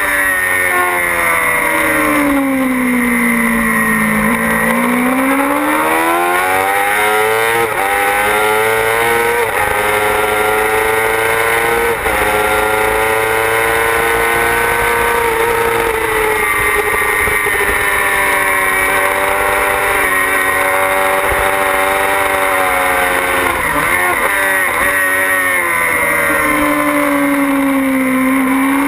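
Yamaha YZF-R6's inline-four engine running at high revs on a racing motorcycle. The revs sink smoothly about a second in, climb again from around five seconds, hold fairly steady through the middle, and dip again near the end as the bike leans into a corner.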